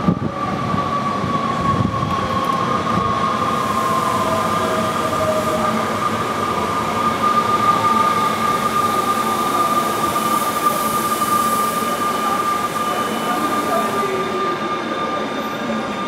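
Siemens Desiro ML (DB class 460) electric multiple unit pulling into a station and slowing. A steady high squeal runs throughout, and a motor whine falls in pitch as the train brakes.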